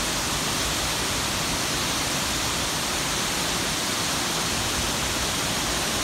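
Wachirathan Falls in heavy flow, a mass of water pouring down a rock face: a loud, steady rush of falling water.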